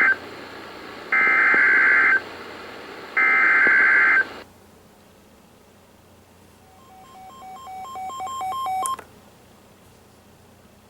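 NOAA Weather Radio SAME alert header: harsh warbling digital data tones sent in roughly one-second bursts a second apart, the end of one burst and then two more, announcing an incoming warning. After a pause, a weather alert receiver sounds a rapid electronic beeping that grows louder for about two seconds and then stops abruptly.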